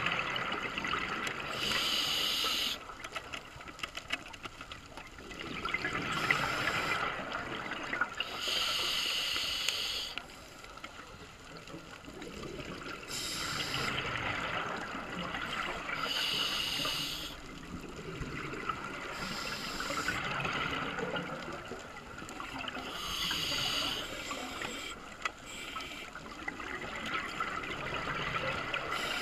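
Scuba regulator breathing underwater: short bursts of hissing and bubbling every few seconds, over a steady wash of underwater noise.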